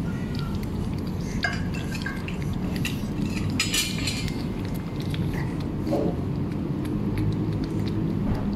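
A cat eating wet food from a plastic tray: scattered small clicks and smacks of licking and chewing against the plastic, with a denser cluster about halfway through, over a steady low background hum.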